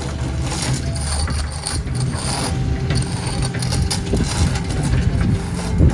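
Skid-steer loader engine running steadily, with scattered clanks and rattles of the machine at work.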